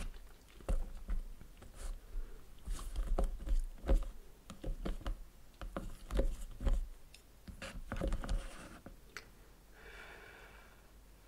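Chopsticks stirring noodles in an instant noodle cup: a quick run of clicks, taps and scrapes against the cup with wet noodle sounds. Near the end comes a soft breathy hiss as a clump of noodles is lifted out.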